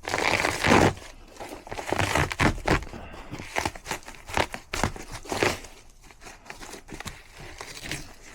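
Irregular crinkling and rustling with light knocks, as of material being handled and moved about.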